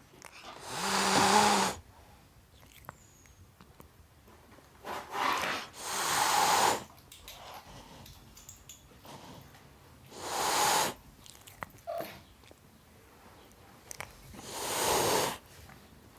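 Tom cat hissing in long breathy hisses, about four of them several seconds apart, with a shorter one just before the second. This is a defensive hiss aimed at a dog.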